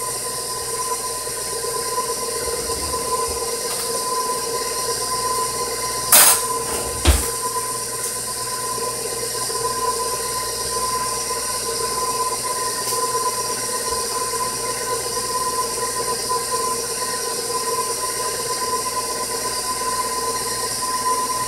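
KitchenAid Professional bowl-lift stand mixer running at a steady speed with a constant motor whine, its flat beater churning thick pound cake batter in the steel bowl. Two brief knocks come about six and seven seconds in.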